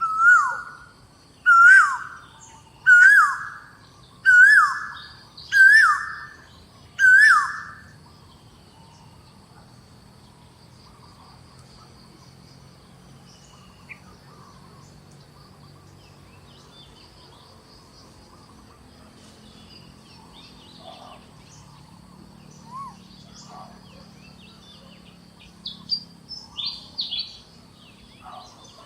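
Six loud, clear whistled calls, each rising then falling in pitch, about one every second and a half, stopping about eight seconds in. Then a low steady forest background with faint scattered chirps, and a few short calls near the end.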